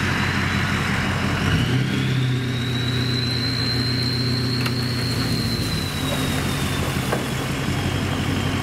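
Flatbed tow truck's engine running while its winch pulls a car up out of the brush. The engine steps up in speed about two seconds in, and a high whine rises with it, holds, then eases off.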